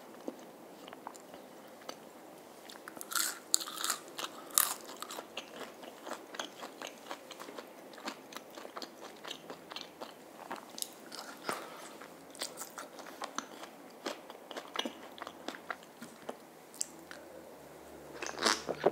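Close-miked eating: crisp bites crunching through fried food and chewing, with sharp crackly crunches throughout, the loudest bunch about three to five seconds in.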